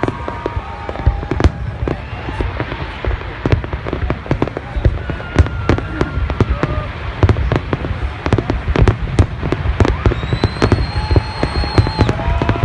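Fireworks display: shells bursting in a dense, irregular string of sharp bangs over a constant deep rumble.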